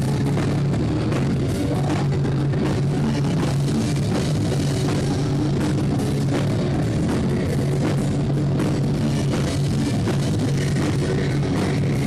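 Rock band playing at a steady loud level, with drums, electric guitar and a strong bass line.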